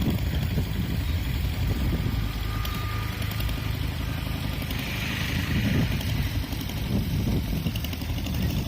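An engine running steadily, with a low continuous rumble.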